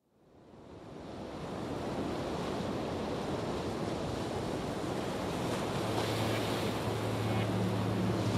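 Ocean surf: a steady wash of breaking waves that fades in over the first couple of seconds, with a low steady hum joining about halfway through.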